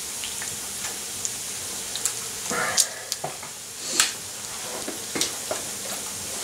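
Bacon frying in a cast-iron skillet: a steady sizzling hiss with scattered sharp pops, a few of them louder, the loudest about four seconds in.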